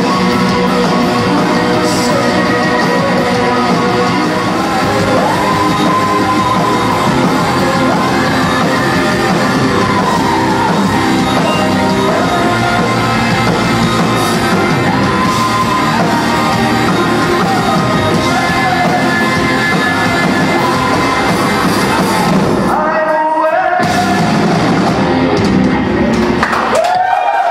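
Rock music with a singer's voice over a full band. The bass drops out briefly about two-thirds of the way through and again just before the end.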